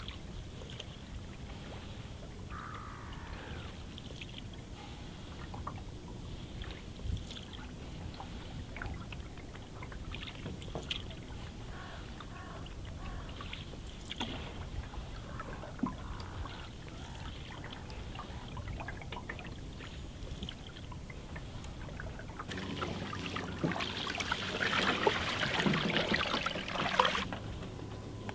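Cedar strip canoe being paddled on calm water: soft paddle strokes with scattered small drips and light knocks. From about 23 seconds in, several seconds of louder rustling and scraping as the bow pushes through dead reed stems at the bank.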